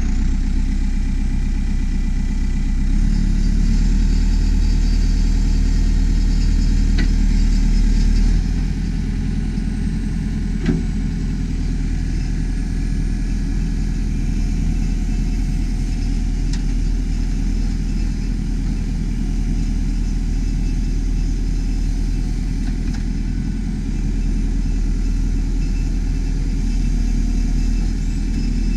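Diesel engine of a 2007 JCB 4CX backhoe loader running steadily. It is a little louder for the first eight seconds or so, then settles lower, with a single click about ten seconds in.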